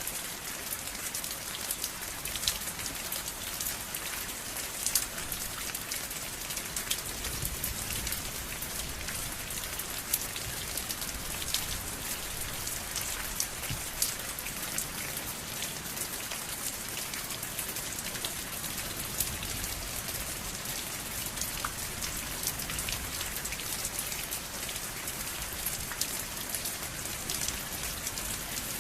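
Steady rain falling, with many sharp drop taps on a surface over an even hiss.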